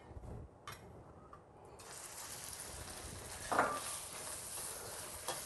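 Marinated shrimp sizzling in oil in a stainless steel wok, a steady hiss that starts about two seconds in after a small clink. There is little spattering or popping because the shrimp were patted dry before going in.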